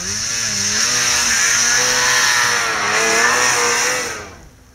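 Snowmobile engine revving hard as the sled climbs a powder slope, its pitch rising and dipping with the throttle over a loud hiss, then fading away near the end.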